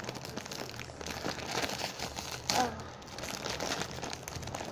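Shiny plastic wrapper of a Kit Kat multipack bag crinkling and crackling as it is pulled and torn open by hand. A short vocal sound comes about two and a half seconds in.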